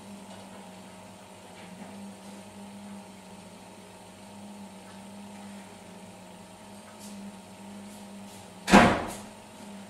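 Steady low hum, with a few faint clicks and then one loud, sudden bang near the end that dies away within about half a second.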